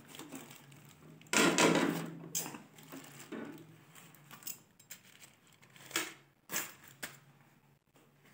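Steel kitchen tongs clinking and scraping against an aluminium steamer pot and its perforated tray while a foil-wrapped parcel is lifted out, with a loud rustle of aluminium foil about a second and a half in and a few sharp metal clicks after.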